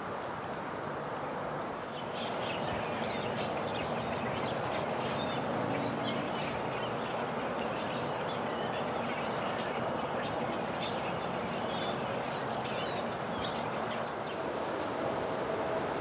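A steady rushing outdoor background, with many short, high bird chirps from about two seconds in until near the end.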